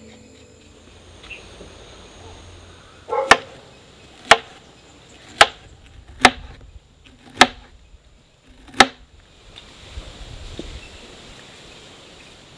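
Six sharp chopping strikes, about one a second, with a slightly longer pause before the last.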